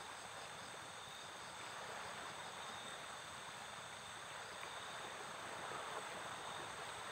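Faint steady chorus of night insects such as crickets, several high continuous chirring tones, over a steady rushing hiss of the flooded river's flowing water.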